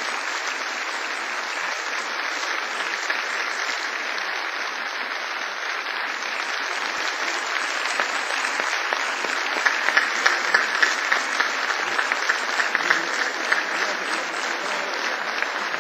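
Audience applauding steadily, the clapping growing a little louder and sharper about two-thirds of the way through.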